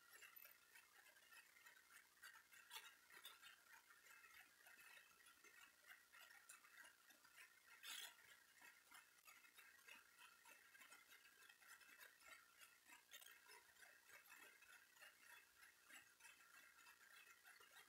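Near silence: faint room tone with soft scattered clicks, a few a little louder than the rest.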